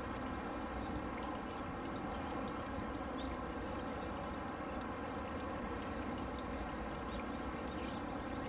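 Steady outdoor background hum with a constant low rumble and no distinct event, with a few faint ticks.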